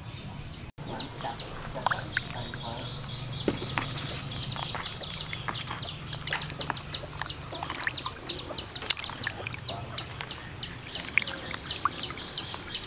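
Birds chirping rapidly, short high calls several times a second, over faint splashing and sloshing of water as fish are rubbed clean by hand in a plastic basin.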